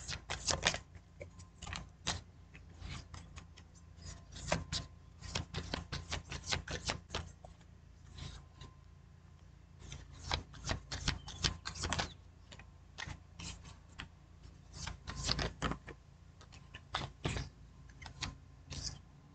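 A tarot deck being shuffled in the hands: irregular runs of quick, light card clicks with short pauses between them.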